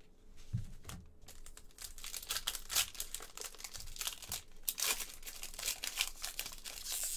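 Foil trading-card pack crinkling in the hands and being torn open, a dense run of sharp crackles from about two seconds in, after a few soft taps of cards being handled.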